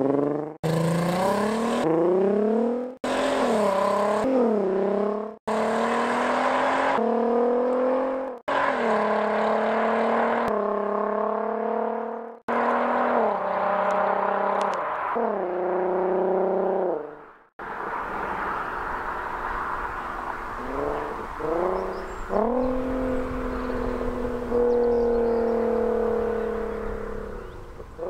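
VW Golf Mk5 R32's 3.2-litre VR6 engine and exhaust under hard acceleration, revs climbing and dropping back through quick DSG upshifts. It is heard as a string of short runs, each cut off abruptly. Over the last ten seconds a quieter pass follows, with a few sharp rises in revs, then a steadier note that fades.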